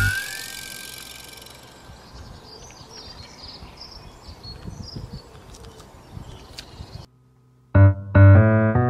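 Background music: a loud note dies away at the start, a quiet stretch with faint high chirps follows, and after a brief gap a piano tune with a steady beat comes in near the end.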